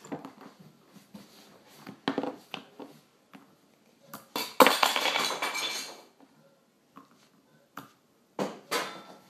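A plastic toy slingshot and small wooden blocks being handled on a wooden tabletop: scattered knocks and clicks, with a longer, loud clatter of pieces about halfway through.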